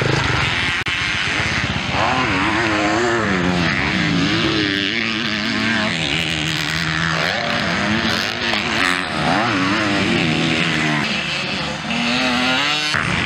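Motocross dirt-bike engines revving hard on the track, the pitch climbing and dropping again and again with the throttle and gear changes, broken briefly about a second in and just before the end.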